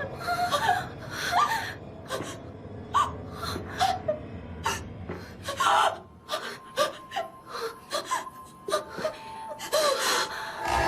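A person gasping and whimpering in fright: a string of short, sharp breaths and small rising cries. A faint low rumble underneath drops away about six seconds in.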